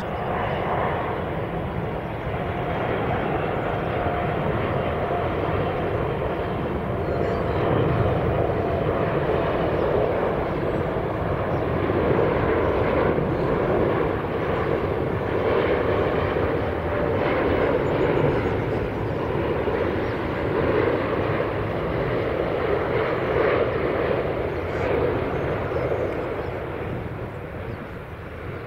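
Airbus A380 jet engines running, a steady rushing jet noise of the airliner landing, easing off near the end.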